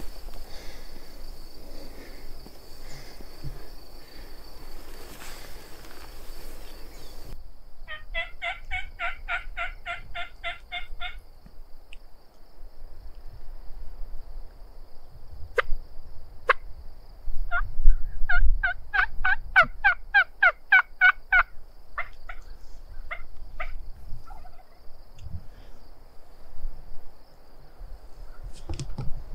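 Turkey yelping: two runs of evenly spaced yelps, about four a second, each run lasting about three seconds, with two sharp clucks between the runs. Before them, several seconds of steady outdoor noise cut off abruptly.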